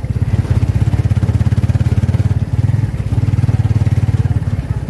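The motorcycle engine of a Filipino tricycle (a motorcycle with a sidecar) running while under way, a loud, fast, even pulsing exhaust note that eases off slightly twice as the throttle is backed off.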